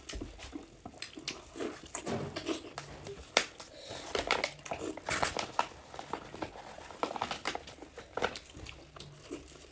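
Clear disposable plastic gloves crinkling and wet, sticky squishes as gloved hands pull apart and squeeze sauce-coated cooked pig intestines: irregular small rustles and clicks.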